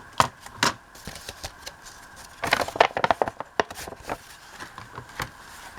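Paper being handled and cut: two sharp clicks near the start, a denser stretch of rustling and snipping in the middle, and another click near the end.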